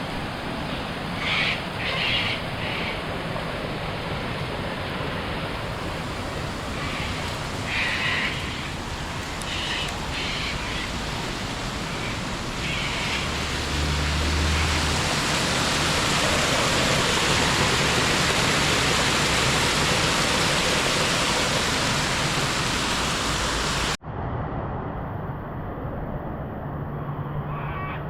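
Steady rain falling, an even hiss that grows heavier in the middle, with a few short higher sounds in the first ten seconds. About four seconds before the end it cuts off abruptly to a quieter, duller rain hiss.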